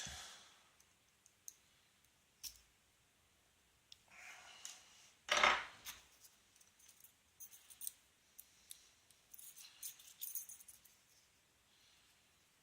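Small metal clicks and clinks of an American Lock 5200 series padlock being taken apart by hand, its parts and tools knocking together, with a louder handling noise about five seconds in and a run of quick clicks near the end.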